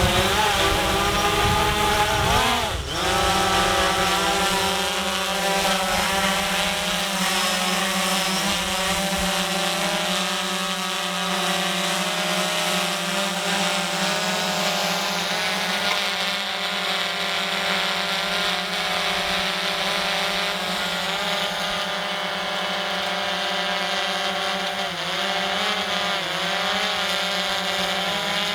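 DJI Phantom 4 quadcopter hovering overhead, its four propellers giving a steady multi-toned whine. The pitch dips and recovers briefly about three seconds in, and wavers again near the end as the drone adjusts over the gutter.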